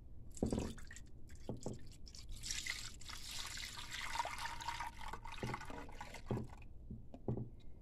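Milk-and-gelatin mixture poured from a plastic container into a glass baking dish, splashing and pouring steadily as the dish fills, then stopping near the end. A few soft knocks are heard along with it.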